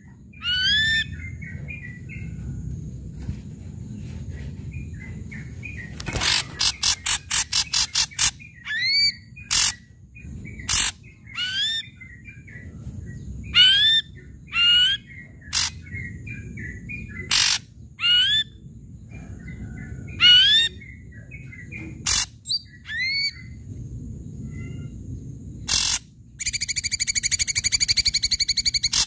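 Ashy drongo singing loudly. Its song mixes rising whistled slurs with sharp, harsh single notes, has a rapid rattling run of notes about six seconds in, and ends in a buzzy fast trill.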